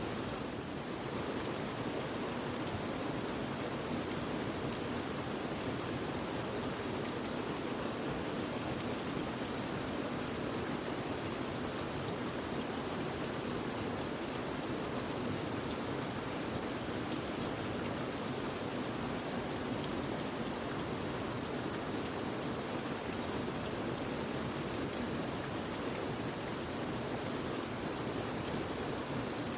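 Mountain stream water rushing steadily, an even, unbroken wash of flowing water.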